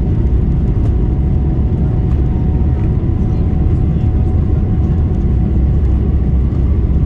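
Boeing 777-300ER's GE90 turbofan engines heard from inside the cabin during the takeoff roll: a loud, steady low rumble with a faint steady whine above it.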